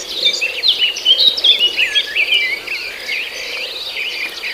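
Several birds chirping in quick, overlapping calls, busiest in the first three seconds, over a steady high-pitched whine.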